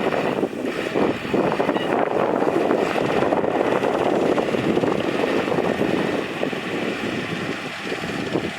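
Diesel engine of heavy earthmoving machinery, a bulldozer or dump truck, running steadily under load.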